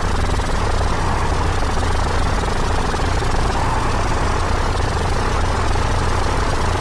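Space sound clip: a sonified recording of a space object, heard as a steady, dense rushing noise over a constant low hum.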